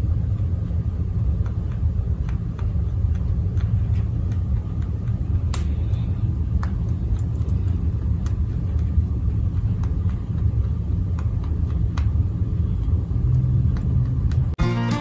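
A steady low rumble, with faint irregular crunching clicks from a Dutch rabbit chewing hay. Music with plucked strings starts just before the end.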